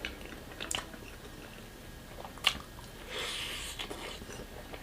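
Close-miked eating sounds of a person chewing a grilled-chicken and rice meal, with wet mouth noises and a few sharp clicks, the sharpest about two and a half seconds in, and a louder stretch of chewing about three seconds in.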